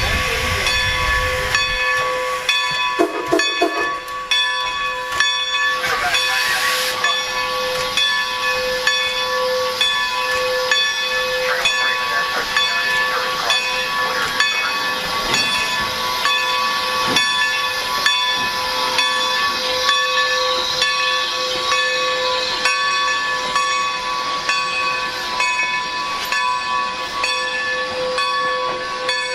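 Baldwin 2-10-0 steam locomotive standing at a platform, hissing steam steadily with a steady whine over it. There is a brief louder surge of hiss about six seconds in.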